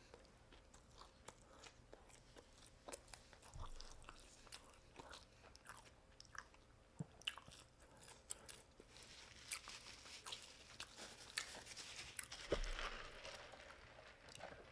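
Faint close-up chewing of fried fast food, with many small crunches and clicks. One louder thump comes near the end.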